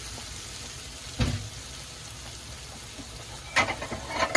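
Squid, pork and vegetables sizzling steadily in a frying pan, with a single knock about a second in and a few sharp clicks near the end.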